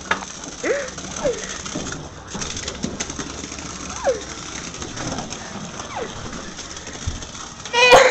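Small battery-powered toy running across the floor with a mechanical whirring rattle, broken by short squeaky chirps about once a second and a louder squeal near the end.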